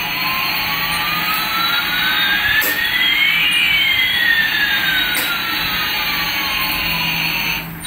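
Electronic jet-engine sound from a battery-operated toy Airbus A380 airliner: a steady hiss with one whine rising in pitch while another falls, the two crossing about halfway. It cuts off near the end.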